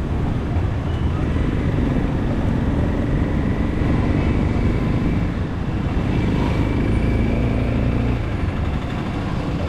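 Motorcycle engine running steadily at low speed, heard from the bike itself, over a dense low rumble of road and wind noise.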